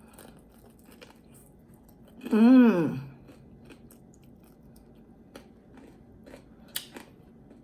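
Close-miked chewing of crispy fried chicken wings: soft crunches and wet mouth clicks. About two and a half seconds in comes a loud hummed 'mmm' of enjoyment that rises and falls in pitch.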